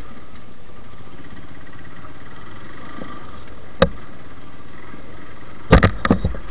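Suzuki Gixxer single-cylinder motorcycle engine running steadily while riding on a rough dirt track. There is one sharp knock a little past halfway and a cluster of loud knocks near the end.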